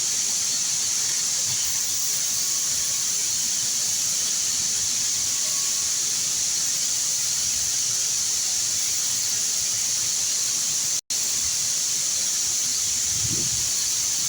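Shielded metal arc (stick) welding with an E6010 electrode: the arc burns with a steady, sharp crackling hiss.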